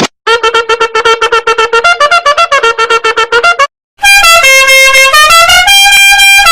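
Meme sound effects: a fast tune of short, repeated staccato notes, about eight a second, then after a brief gap a loud, brassy horn-like tune of held notes stepping up and down in pitch.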